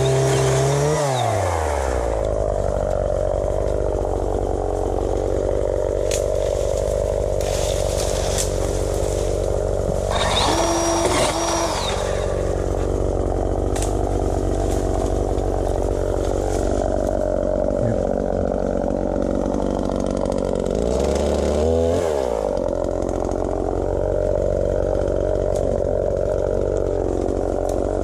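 Small two-stroke engine of a pole saw idling steadily. It falls back to idle from a rev near the start and is revved briefly about 21 seconds in.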